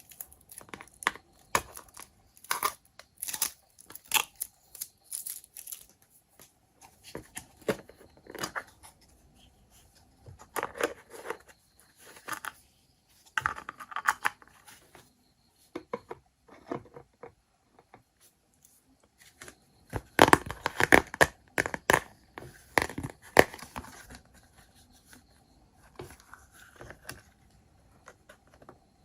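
Toy packaging being torn open and crinkled by hand, with irregular rustling and crackling. The densest, loudest stretch comes about two-thirds of the way through.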